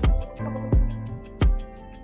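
Background music with a steady beat: a bass drum about every 0.7 seconds over held bass notes.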